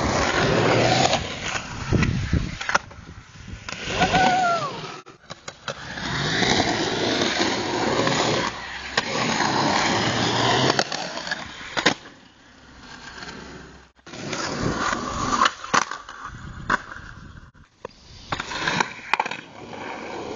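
Skateboard wheels rolling on rough pavement, with several sharp clacks of the board popping and landing during pop shove-it tries.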